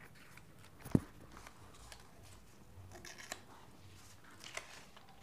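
Paper being handled and torn into strips against a plastic ruler, with short, quiet crackling rips. A sharp knock about a second in is the loudest sound.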